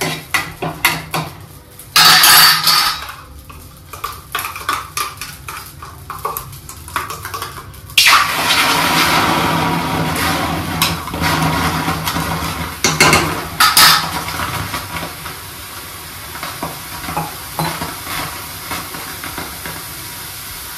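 A steel spoon scrapes and clinks in a steel kadhai as dry-roasting spices are stirred over a gas flame, with a short loud sizzle about two seconds in. About eight seconds in, water poured into the hot, oil-free pan hisses loudly, and the sizzle slowly dies away over several seconds.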